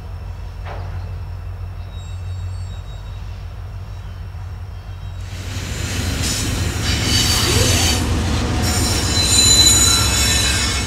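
A freight train running low and steady at a distance. About five seconds in, a much louder freight train passing close comes in: rolling wheel-and-rail noise with high-pitched wheel squeal.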